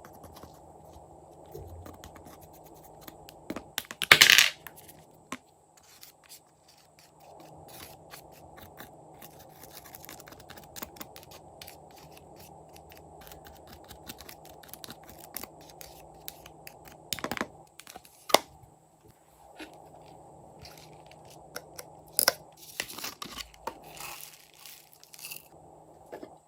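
Hands handling slime and its craft materials: scattered sharp clicks, scrapes and crackles, with one loud rustling burst about four seconds in, over a faint steady hum.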